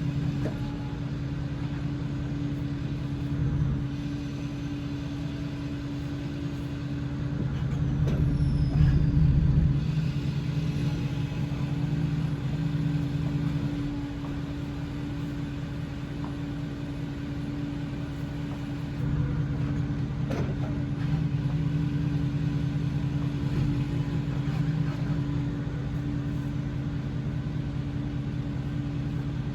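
A vehicle engine running steadily at low speed, its hum swelling louder for a couple of seconds about eight seconds in and rising again around twenty seconds in.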